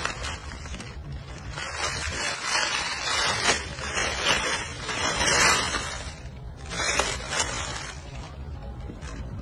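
Dry leaf litter rustling and crackling in irregular bursts as a macaque rummages through it with its hands.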